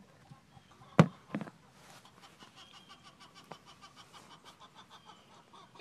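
Two sharp knocks about a second in, the second weaker, then faint rustling and a small click.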